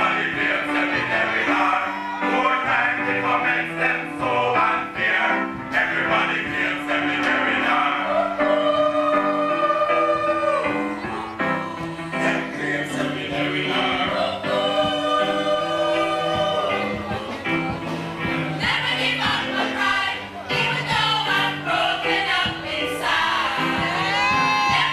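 Music: several voices singing together over a steady bass line, holding long chords twice in the middle.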